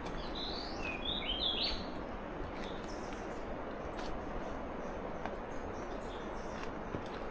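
A bird calling in a quick run of short chirps in the first two seconds, over the steady rush of a river.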